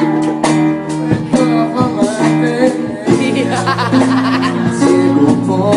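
Live band music: keyboard chords and drums, with a man singing into a microphone.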